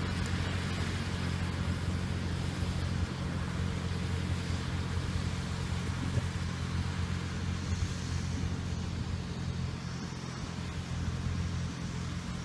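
Small tractor running a round baler: a steady low engine drone with a hiss of field noise over it.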